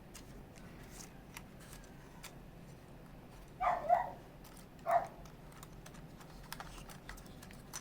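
Light scattered clicks and rustles as the drone and its plastic wrapping are handled. A dog barks three times about halfway through.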